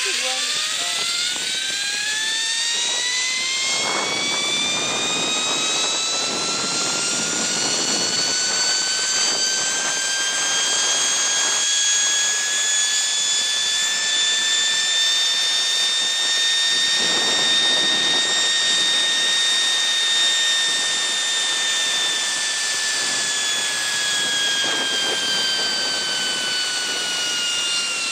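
Zip-line trolley pulleys running along the steel cable, making a high whine with several overtones. The pitch climbs steeply as the rider gathers speed, holds near its peak through the middle and sinks slowly as the trolley slows near the end. A steady rush of air noise runs underneath.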